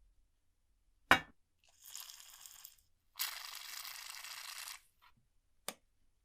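Hands handling a rusty old metal alarm clock: a sharp knock about a second in, then two stretches of scratchy scraping, the second longer and louder, and a small click near the end.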